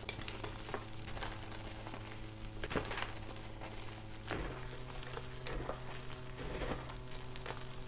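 Fresh plain white gym chalk being squeezed and crushed by hand, with soft crunching and crumbling strokes as the powdery blocks give way, a few sharper crunches among them. A faint steady low hum lies underneath.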